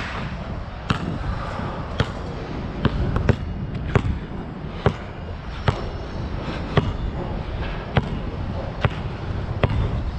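Nike True Grip basketball bouncing, about ten sharp bounces roughly a second apart at an uneven pace, over a steady low rumble.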